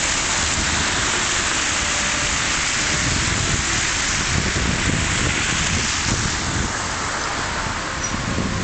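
Steady outdoor noise of a street in a snowstorm: a dense hiss with an irregular low rumble underneath.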